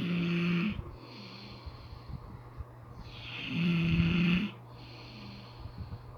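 A man snoring in his sleep: two loud snores about three seconds apart, each followed by a softer, shorter snore.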